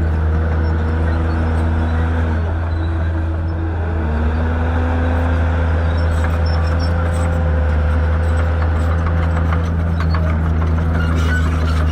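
Shantui bulldozer's diesel engine running steadily under load, a deep heavy drone with a higher whine that dips and climbs back about four seconds in and eases again near the end.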